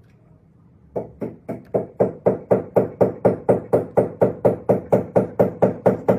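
A fast, even run of knocks, about four a second, starting about a second in.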